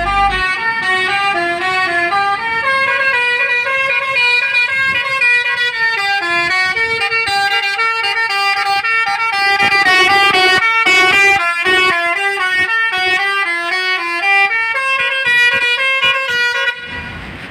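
A bus's 'telolet Basuri' multi-tone musical air horn playing a fast melody of short stepped notes, which cuts off suddenly near the end.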